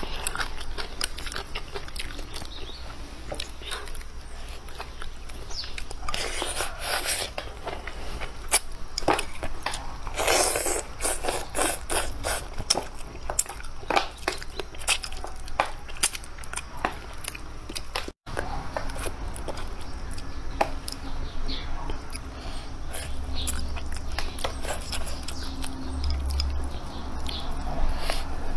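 Close-up eating sounds: irregular chewing, crunching and lip smacking of food, over a steady low hum.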